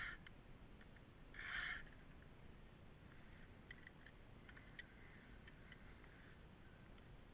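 A chainsaw chain being hand-filed with a PFERD CS-X filing guide: one short rasping file stroke across a cutter and raker about a second and a half in, then faint scattered ticks.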